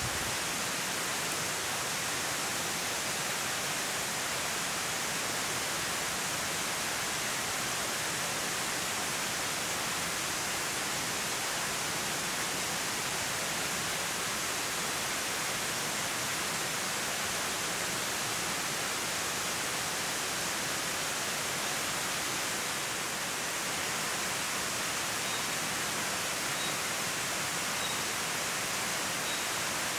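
Steady, unbroken rush of flowing water, like a stream or small cascade close by. A few faint, high peeps come near the end.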